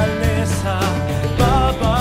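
Background song: a singer's wavering melody over bass and drums with a steady beat.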